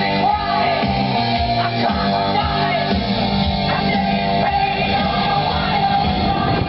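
Music with a singing voice, steady and loud throughout.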